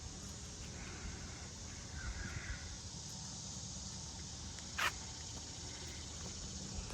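Faint outdoor ambience: steady insect chirring, with a faint bird call about two seconds in and a single sharp click near five seconds.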